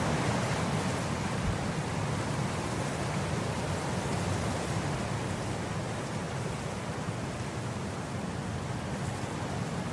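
Wind blowing across grass: a steady rushing noise with no distinct events, easing off gradually.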